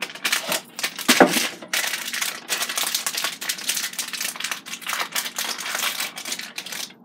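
Plastic zip-top bag and a package of breading mix crinkling and rustling as the mix is shaken and poured into the bag, with one sharp knock about a second in.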